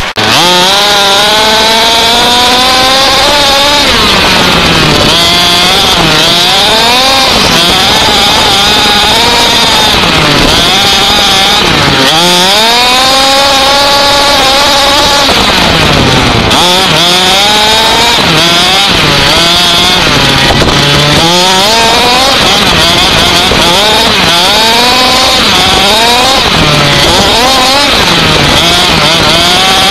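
Small nitro engine of an RC off-road buggy, heard close up from the car itself, revving up and falling back over and over, roughly every couple of seconds, as it is driven across sand.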